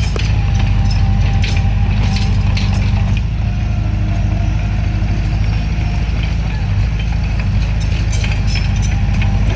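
Bulldozer's diesel engine running steadily, with scattered metallic clanks and clicks over it.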